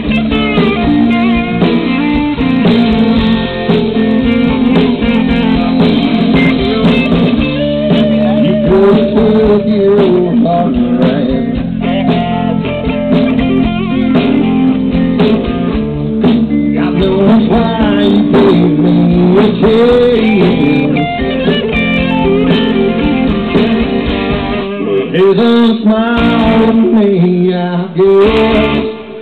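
A live band playing amplified music, with electric guitars to the fore, heard from in front of the stage. The bass end drops away for a few seconds near the end.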